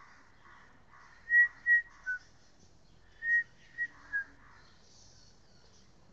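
Clear whistled notes in two short phrases of three, the third note of each phrase a little lower than the first two.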